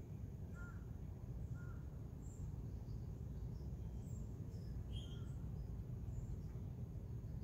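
Outdoor ambience: a steady low rumble with a scattering of faint, short bird chirps, two lower ones about a second apart near the start.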